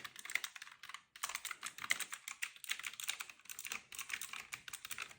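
Keys of a typewriter-style gaming keyboard clacking rapidly as they are pressed in a quick, irregular run, with a short pause about a second in.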